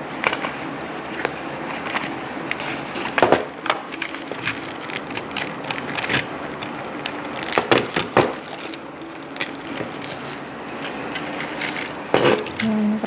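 Crinkling and rustling of a thin wrapping sheet and a small cardboard box as a diecast model bus is unwrapped by hand, with irregular crackles and a few louder crunches.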